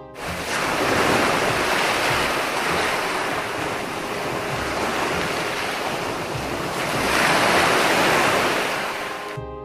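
Ocean surf breaking on rocks: a steady rushing wash of waves that swells about a second in and again around seven to eight seconds, then eases off near the end.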